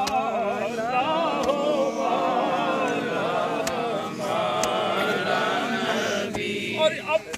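A group of men's voices chanting together in unison, many overlapping voices holding a steady drone until they thin out near the end.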